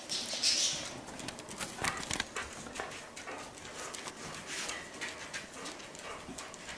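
Pets licking each other's faces: a run of irregular wet smacking clicks, with a brief hissing slurp about half a second in.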